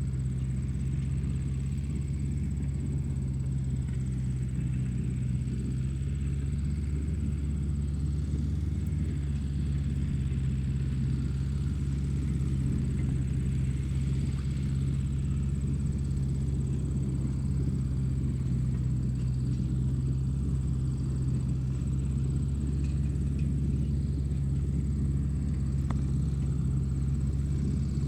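A steady, low machine rumble with a thin, constant high whine above it, from radio-controlled construction vehicles running.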